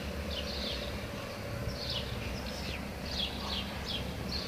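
Small birds chirping: quick runs of short, high, downward-sliding chirps, several a second, over a low steady background rumble.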